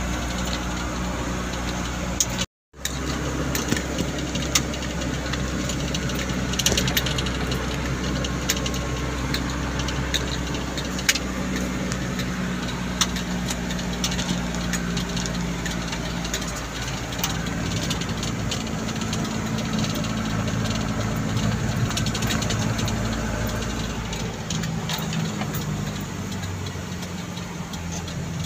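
A vehicle's engine running steadily as it drives, heard from inside the cab, with scattered light rattles and clicks. The sound cuts out completely for a moment about two and a half seconds in, and the engine note changes and drops in its low end near the end.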